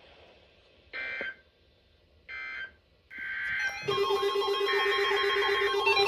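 Emergency Alert System end-of-message signal: three short bursts of buzzy two-tone SAME digital data, about a second apart. From about four seconds in, louder synthesizer music with a steady held low note starts.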